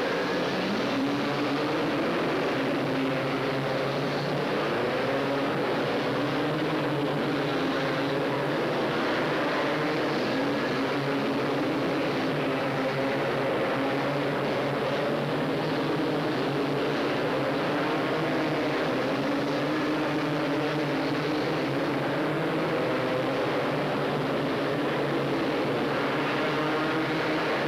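A pack of racing ATV engines running together at full race pace, their pitches rising and falling as the riders throttle through the turns, with no break in the sound.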